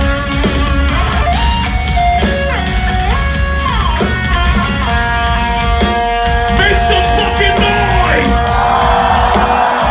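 Live metalcore band playing loud, heavy distorted electric guitars over bass and drums. A lead line slides and bends up and down, then settles into long held notes about halfway through.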